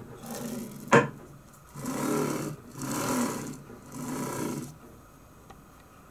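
Hiwin linear-guide carriages rolling along their rails as the router's z-axis plate is pushed back and forth by hand: three rumbling strokes of the ball-bearing carriages, after a sharp click about a second in.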